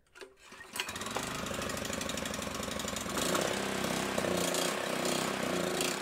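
Powerfist GX200-clone single-cylinder engine catching on a recoil-starter pull about a second in and running, its speed shifting up and down partway through. This is the idle surge that the owner puts down to a carburetor that is likely clogged a bit.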